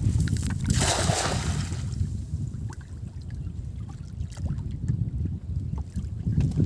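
A cast net landing on the river with a brief hissing splash about a second in, over a steady low wind rumble on the microphone.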